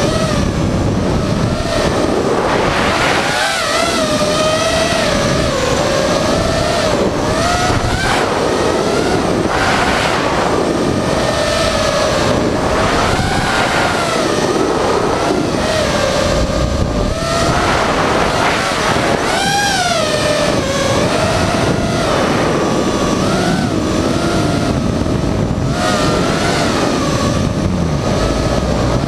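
FPV quadcopter's electric motors and propellers whining, the pitch rising and falling constantly with the throttle, with a quick swell and drop in pitch about twenty seconds in.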